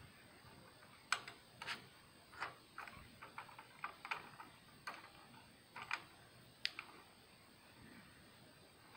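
Faint, irregular clicks and light ticks, a dozen or so in the first seven seconds, from a Bugs 5W quadcopter being handled while its motor is checked for a fault. The owner suspects a bit of sagebrush caught in the motor.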